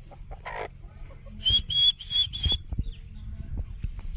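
A person whistling to call aseel chickens to feed: four short, even whistles in quick succession about a second and a half in.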